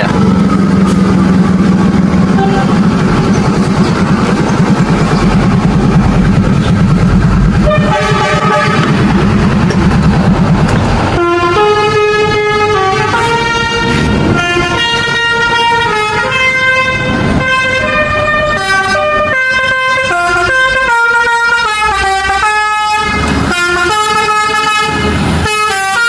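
A heavy vehicle's engine runs, with a short horn chord about eight seconds in; from about eleven seconds a bus's multi-tone 'telolet' (basuri) horn plays a continuous tune of stepped notes.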